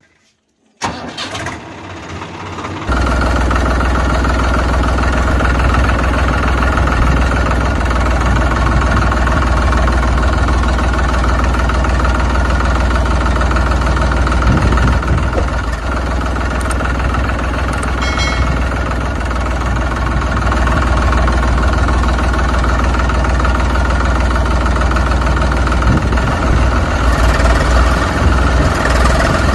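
Tractor engine sound effect: the engine starts about a second in, builds for a couple of seconds, then runs steadily with a deep hum.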